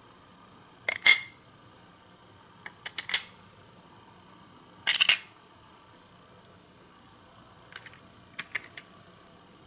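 Small plastic parts of a miniature hot-plate replica clicking and clacking as they are set and snapped into place. There are short clusters of sharp clicks about a second in, around three seconds and, loudest, around five seconds, then a run of lighter ticks near the end.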